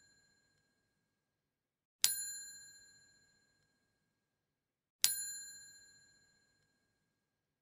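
Ding of a small metal bell sound effect, struck twice about three seconds apart, each ring fading out in under a second with dead silence between.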